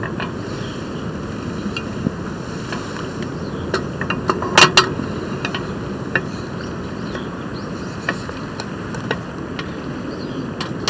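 Metal hot sandwich maker being handled on a camp gas stove: scattered light clicks as bread is laid in, then a quick cluster of sharp metal clacks about halfway through as the lid is shut, over a steady background noise.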